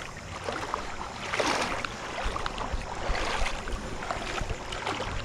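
Creek water rushing and splashing, with wind rumbling on the microphone and a few small clicks and knocks.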